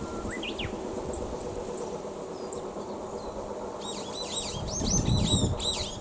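Brown-eared bulbul singing: a short rising whistle about half a second in, then near the end a loud, fast run of high notes that rise and fall.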